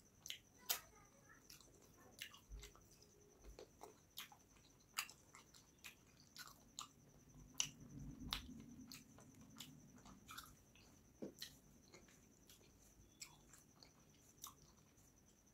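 Close-miked wet chewing and lip smacking while eating rice and fish curry by hand, heard as irregular sharp mouth clicks.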